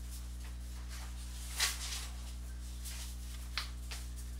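Steady low electrical hum with a couple of faint, brief rustles, the clearest about a second and a half in.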